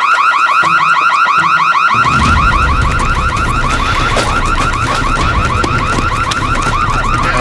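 Electronic alarm siren sounding a fast, regular warble of quick rising sweeps, several a second. About two seconds in, a low rumble joins underneath.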